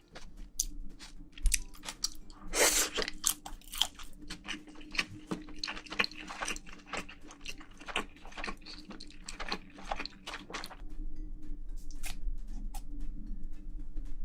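Close-miked chewing and crunching of a mouthful of spicy braised seafood (haemul-jjim), with many crisp crunches that thin out and grow fainter after about eleven seconds.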